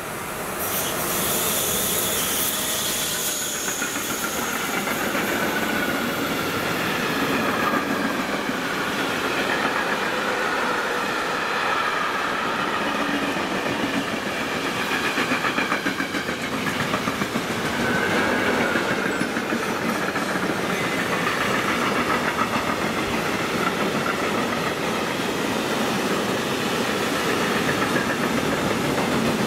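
Electric train running past at close range, a loud continuous rush of wheel-and-rail noise that builds in the first second and holds for the rest, with a faint wavering higher tone above it.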